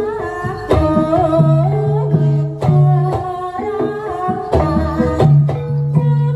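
Live gamelan-style music accompanying the dance: a singing voice over sustained melodic instrument notes, punctuated by sharp percussive strokes.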